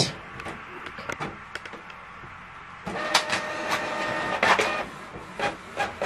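Canon Pixma MG3650 inkjet printer starting a print job. A few mechanical clicks come first, then about three seconds in its motors whir for around two seconds with a steady whine, followed by more clicks.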